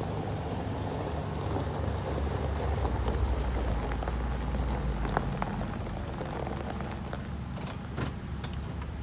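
Two Tracker Off Road 800SX side-by-side utility vehicles rolling slowly over gravel and pulling up. Their three-cylinder engines give a low, quiet hum under the crunch of tyres on gravel, with a few sharp clicks in the second half.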